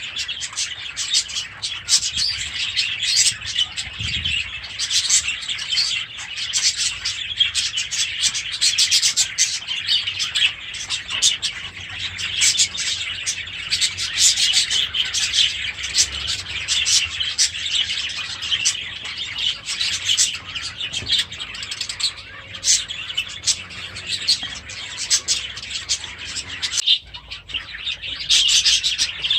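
A colony of budgerigars chattering and warbling continuously, with many overlapping chirps. The chatter breaks off for a moment near the end.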